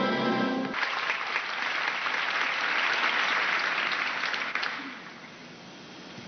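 Orchestral music breaks off a moment in and an audience breaks into applause. The clapping fades down about five seconds in.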